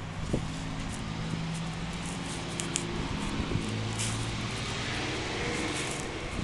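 An engine running steadily, its low drone shifting slightly in pitch, with faint scattered clicks.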